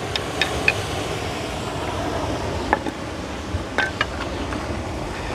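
Steady rumble of wind and sea surf, with a few sharp clicks spaced irregularly, three close together near the start and two more about three to four seconds in.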